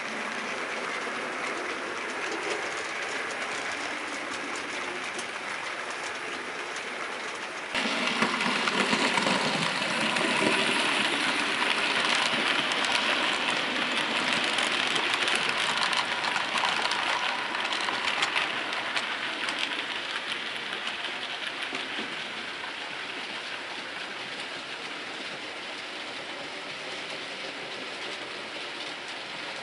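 OO gauge model train, a Bachmann USA S100 0-6-0T tank locomotive hauling coaches, running along the layout's track with a steady sound of wheels on the rails. The sound gets suddenly louder about eight seconds in, is loudest as the train passes close, and then fades as it moves away.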